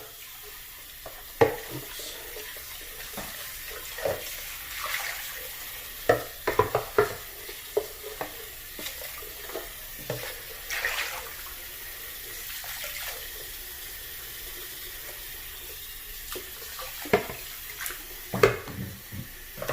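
Water running steadily from a tap while the plastic parts of a cordless floor washer are rinsed out, with scattered clicks and knocks as the parts are handled.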